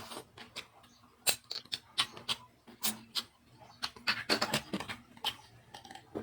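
Close-up eating of spicy seafood: irregular sharp clicks, snaps and wet smacks of chewing and biting, with a denser run of them about four seconds in.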